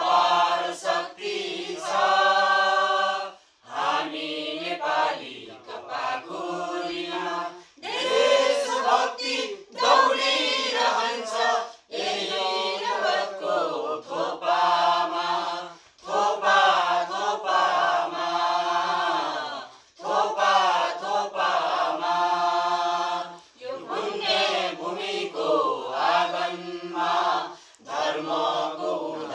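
Mixed group of men and women singing together without accompaniment, in phrases of a few seconds broken by short pauses for breath.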